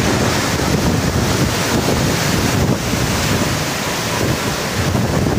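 A rainstorm with strong wind: a loud, steady rush of wind and rain, with the gusts buffeting the microphone in an uneven low rumble.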